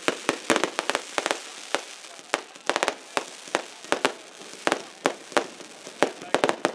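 Fireworks display: shells and comets bursting in an irregular rapid string of sharp bangs, about three or four a second, with a quick cluster of cracks about three seconds in, over a steady hiss between the reports.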